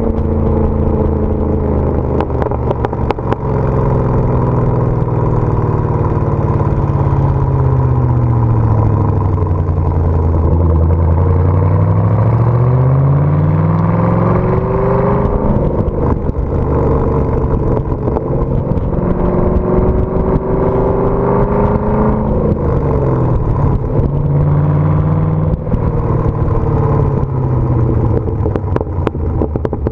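Chevy Camaro SS 6.2-litre V8 running through a Hooker Blackheart axle-back exhaust with no mufflers, on and off the throttle while being driven. The exhaust note sinks as it eases off over the first several seconds, climbs as it accelerates, and keeps rising and falling after that.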